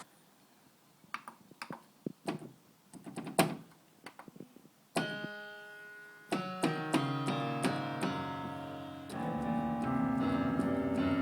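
A few sharp taps and knocks, then about halfway through, piano-like electronic notes start sounding from the Fanton G6. They build into a louder, fuller held chord near the end.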